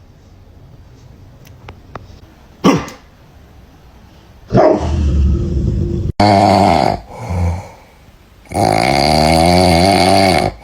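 A dog gives one short sharp bark, then a series of long, drawn-out growling calls with a wavering pitch, the last lasting about two seconds.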